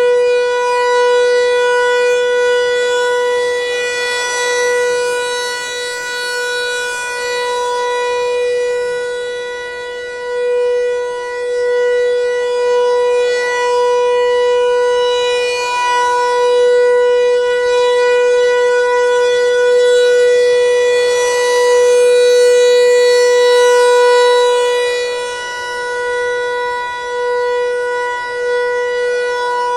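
ASC T-128 outdoor warning siren sounding a steady Alert tone for a tornado warning: one held pitch with many overtones, its loudness swelling and fading every few seconds.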